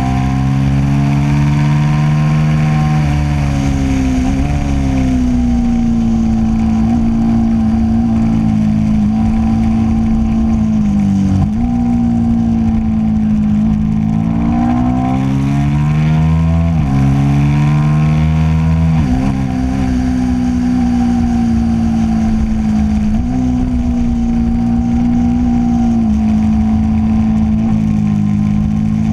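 Motorcycle engine run hard around a racetrack, its pitch climbing under acceleration and dropping back several times, with sudden steps in pitch at the gearshifts, over steady wind rush.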